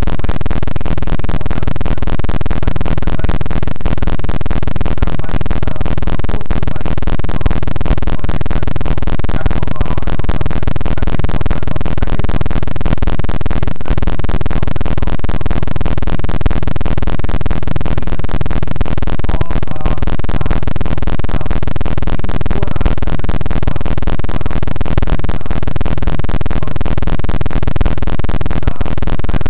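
Loud, unbroken distorted noise with a steady tone running through it and no clear speech: garbled audio.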